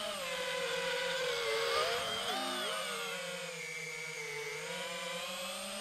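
Brushless motors and propellers of an FPV freestyle quadcopter (T-Motor Velox V2207 2550KV) whining, the pitch shifting with throttle. The pitch dips and wavers about two to three seconds in, stays lower through the middle, and climbs again near the end.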